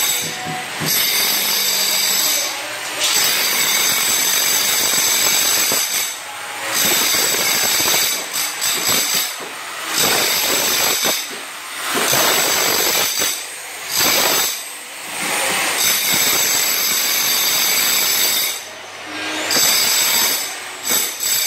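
Electric demolition hammer chiselling at a concrete floor slab, running in bursts of a few seconds with short pauses between them.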